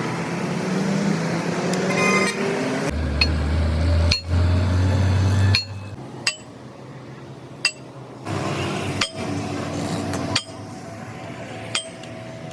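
Sharp metal-on-metal strikes and clinks of hand tools on machine parts, several separate hits a second or more apart, over a shifting machine hum that is loudest for a few seconds near the start.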